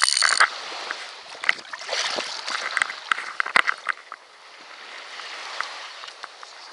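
Water splashing and sloshing, with a short high-pitched burst right at the start and scattered clicks and knocks.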